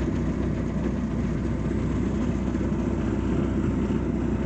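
Motorboat engine running steadily with the boat under way, a constant low drone.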